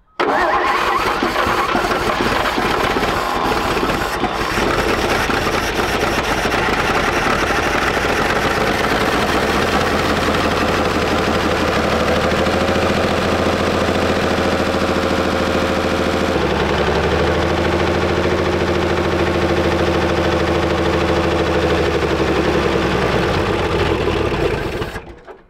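A long-stored World War II Chevrolet truck's straight-six engine fires up and runs on a little gas poured into its carburetor, which has a poorly working needle and seat. It runs steadily for over twenty seconds, changes speed about two-thirds of the way through, then slows and dies just before the end. It sounds a lot better than it did the day before.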